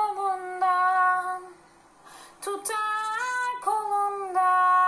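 A woman singing a Turkish song unaccompanied, holding long, sliding notes, with a short break about two seconds in.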